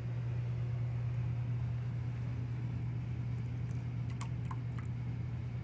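Steady low electric-motor hum, unchanging throughout.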